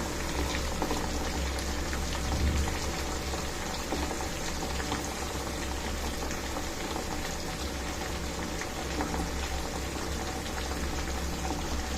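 Large chicken pieces deep-frying in hot groundnut oil in their second fry, a steady sizzle with fine crackling.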